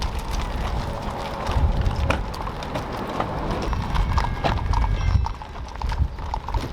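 Horses' hooves clip-clopping, many uneven strikes in a row, over a low background rumble.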